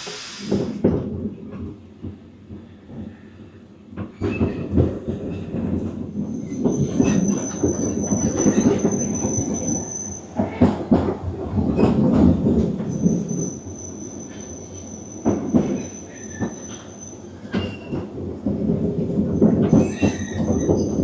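Narrow-gauge train running along the line, its wheels and carriages rumbling and knocking, with long high-pitched wheel squeals that come and go three times.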